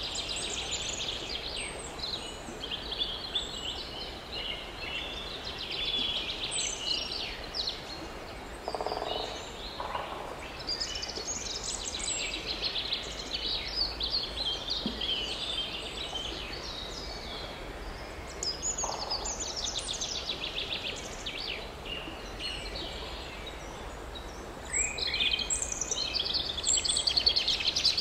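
Forest birdsong: several small birds chirping and trilling in quick high phrases, loudest near the end, over a faint steady outdoor background, with a few lower, shorter calls in between.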